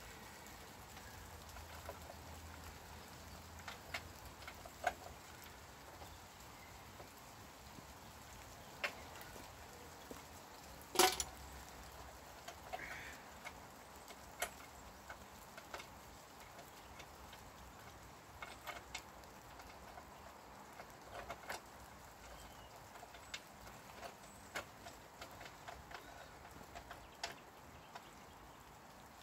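Scattered light clicks and taps of scooter parts and hand tools being handled during reassembly, with one sharper knock about eleven seconds in.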